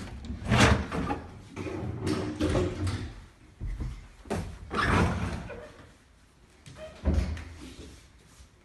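Interior closet doors being opened and closed: about four bouts of knocks and bumps, the loudest about half a second in and another near the end.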